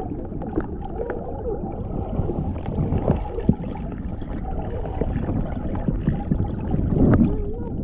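Muffled underwater sound of a swimming pool as heard by a submerged camera: a dull rumble and gurgle of water stirred by swimmers' kicking, with a few soft knocks.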